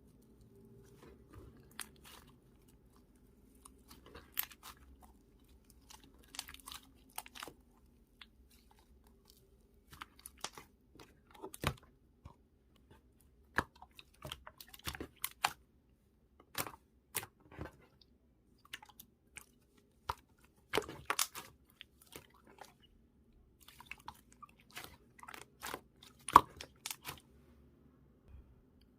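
Slime being squished and pressed by hand, making irregular wet clicks and sharp pops, with one louder pop near the end.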